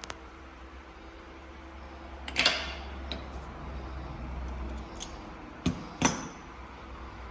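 Sharp metal knocks and clinks of tools and parts while a small bench vise is worked on: one clattering knock about two and a half seconds in and two sharp ringing knocks close together near six seconds, over a low steady hum.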